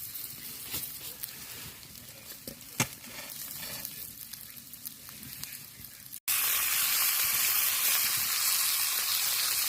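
Sausages and burgers sizzling in a pan. After about six seconds the sizzle comes in loud and steady; before that it is quieter, with a few sharp crackles.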